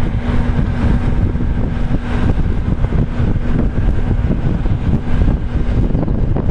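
Hi-rail service truck rolling along the rails toward the microphone, its engine running with a steady low rumble and hum; the hum drops out briefly about halfway.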